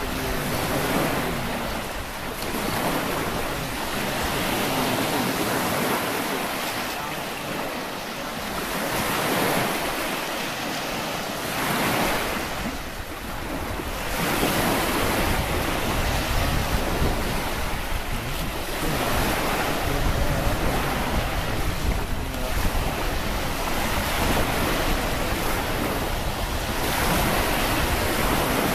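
Surf breaking and washing on a sandy shore, rising and falling in slow swells, with gusty wind buffeting the microphone; the wind rumble gets heavier about halfway through.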